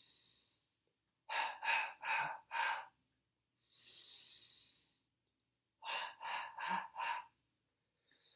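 A man's huff coughing: after a soft breath in comes a quick run of four short, fairly soft huffs. There is a second breath in, then another four huffs. This is an airway-clearance technique meant to shake sticky mucus loose from the lungs.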